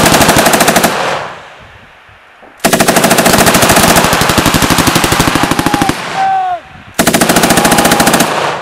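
British Army GPMG (7.62 mm general-purpose machine gun) firing long bursts of automatic fire: one burst ends about a second in, a second runs for about three seconds, and a shorter one follows near the end.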